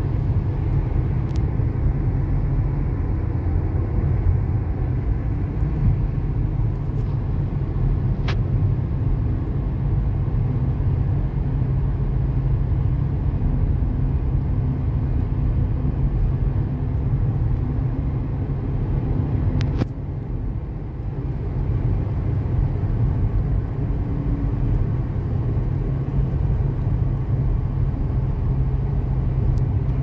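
Steady low rumble of a car on the move, engine and road noise, with two faint clicks.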